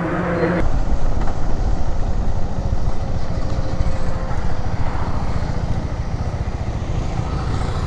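Motorcycle running along the road, with steady engine rumble and wind noise on the microphone.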